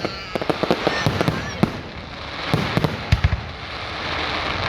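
Consumer fireworks going off: rapid pops and crackles, with a few deeper booms, the heaviest about three seconds in.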